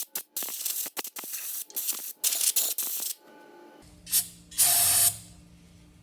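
A hand ratchet turning in quick back-and-forth strokes for about three seconds, loosening the carburettor's float-bowl fastener, then two short hissing spray bursts near the end.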